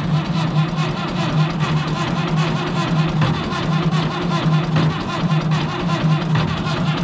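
1969 Massey Ferguson 3165 backhoe tractor's engine cranking over on the starter motor, boosted from another battery, with a steady rhythmic churn, turning but not firing.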